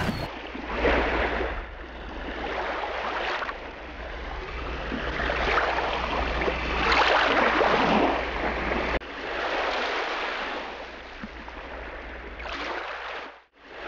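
Wind and water noise on a lake, swelling and easing every second or two, over a steady low rumble that stops abruptly about nine seconds in.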